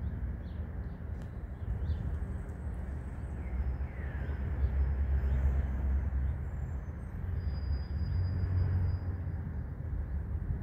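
Outdoor background of a low, steady rumble that swells in the middle and again near the end, with faint high chirps over it.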